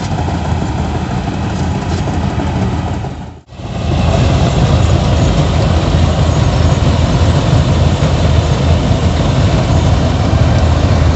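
Diesel engine of a John Deere 5310 tractor running a Dasmesh 912 rice combine harvester, a steady low running sound. It breaks off for a moment about three and a half seconds in and comes back louder.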